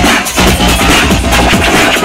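Loud electronic dance music with a steady bass-heavy beat, played through a large sound system.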